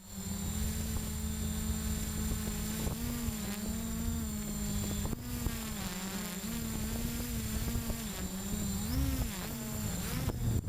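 Storm 6 hexacopter's motors and propellers humming loudly, heard from its onboard camera. The pitch holds steady at first, then wavers up and down from about three seconds in as the motor speeds change in flight.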